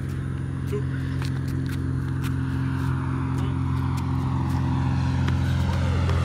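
A steady low motor hum, slowly growing louder, with scattered faint clicks.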